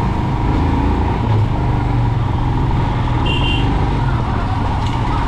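Steady vehicle engine and road noise in heavy traffic, with a short high beep about three seconds in.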